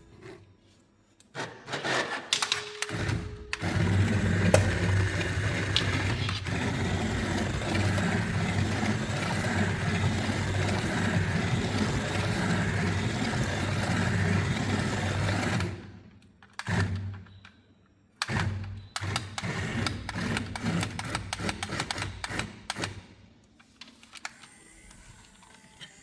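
Small electric motor and gears of a battery-powered toy running steadily for about twelve seconds, with scattered clicks and clatter before it and after it stops.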